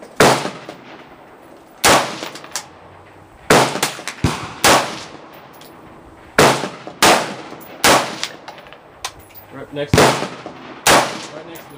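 Semi-automatic AR-15 rifle fired one shot at a time: about nine sharp, loud reports at an uneven pace, roughly one every second or two, each trailing off in a short echo. Fainter shots from another shooter on the range come in between.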